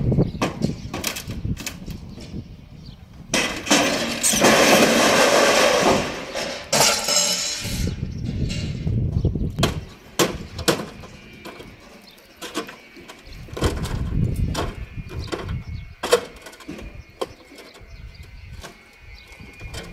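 Wooden concrete formwork being stripped: a run of knocks and wooden clatter as boards and timbers are pried loose. A long crash of falling boards comes from about three to eight seconds in.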